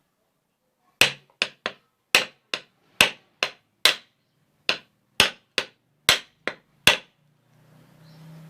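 Hammer tapping a ceiling fan's housing to seat it over the motor: about fourteen sharp taps at roughly two a second, which stop about a second and a half before the end.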